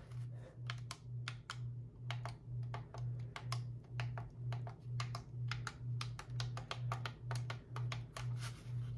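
Front-panel buttons of an Etón Zoneguard weather radio pressed one after another, a quick, irregular run of small clicks. Under them a low hum pulses about twice a second.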